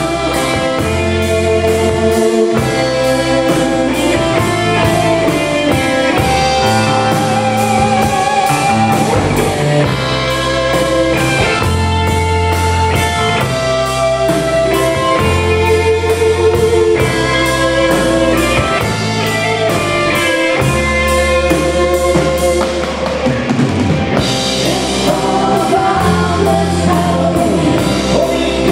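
Live rock band playing an instrumental passage: electric guitars carry the melody over a drum kit's steady beat and low bass notes.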